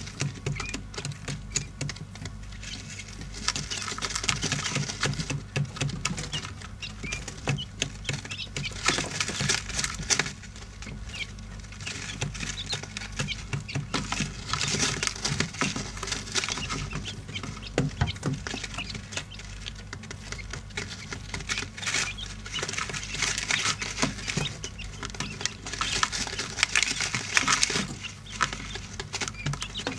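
Quail chicks pecking and scratching in coarse grit bedding: a busy run of small clicks and rustles that comes and goes in bursts, with occasional soft chick peeps, over a steady low hum.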